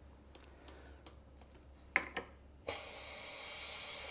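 A couple of light knocks on the iTap counter-pressure bottle filler. Then, about two and a half seconds in, a sudden steady hiss of CO2 gas escaping from the filler, because its nipple was left unscrewed.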